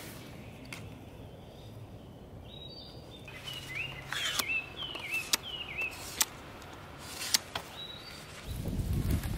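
A bird chirping in short repeated phrases, over sharp clicks and knocks as gear is handled, including a folding stool's metal legs. A low rumble comes in near the end.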